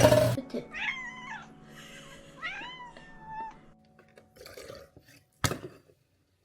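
A domestic cat meowing twice, two drawn-out calls that rise and fall in pitch, followed by a single sharp click.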